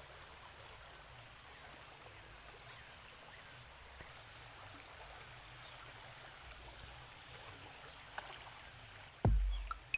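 Faint steady rush of flowing water. Near the end, background music with a heavy drum beat comes in.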